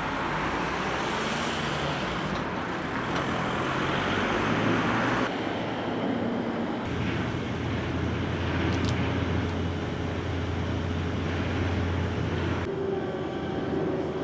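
Outdoor traffic and engine noise, a steady wash of passing vehicles, with a low engine hum running through the middle. The background changes abruptly a few times, as separate recordings are joined.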